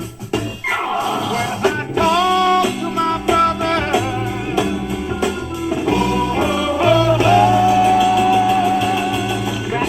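Rock band playing a song: singing over guitar and bass, with one long held sung note in the second half.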